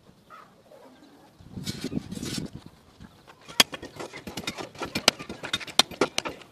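A hand hammer striking a steel reinforcing bar laid on a stone, a rapid irregular run of sharp knocks beginning about halfway through. Before the knocks there is a brief rustling scrape.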